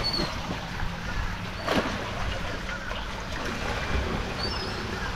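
Running, splashing water over a steady low hum, with one brief knock and a few short high chirps.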